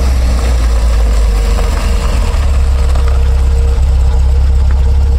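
A loud, steady low electrical hum, mains hum through the stage PA system, with no change in pitch or level.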